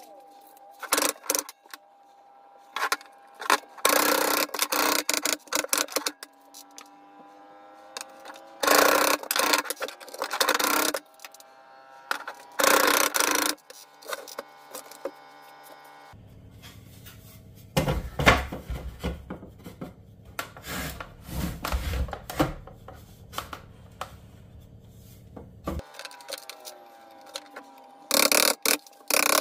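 Wood being scraped with a hand tool, in separate bursts a second or two long; about halfway through a low steady hum starts and cuts off sharply some ten seconds later.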